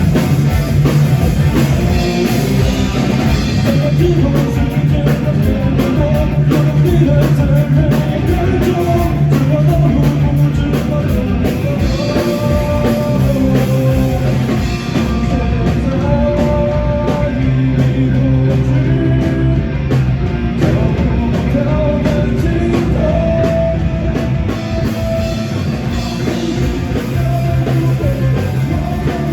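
Live rock band playing loudly: drum kit, bass and electric guitar, with a held melodic line over the top.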